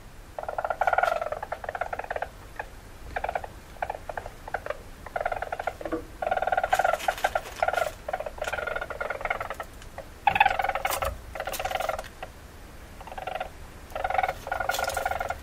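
Weasel calling in rapid buzzing trills, delivered in runs of about one to two seconds separated by short pauses.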